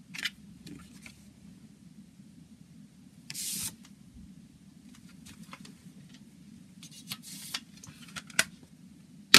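A paper CD booklet and plastic jewel case being handled: rustling and sliding paper, scattered light clicks and taps, and a sharp plastic click near the end, over a steady low hum.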